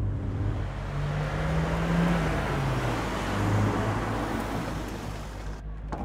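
Car driving: a low engine hum that rises and falls in pitch under a steady rush of road noise, cutting off suddenly near the end.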